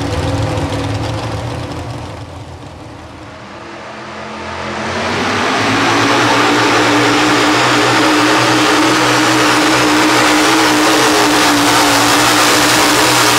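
Economy hot rod pulling tractor's engine held at full throttle while it pulls the weight sled, loud and steady. A quieter tractor engine runs at the start, and the full-throttle sound rises in a little under halfway through.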